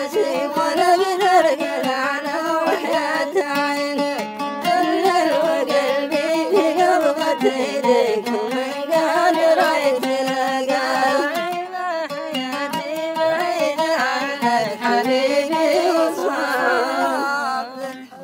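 Music: an Arabic song in the Mashqasi style, a sung melody winding up and down over instrumental accompaniment.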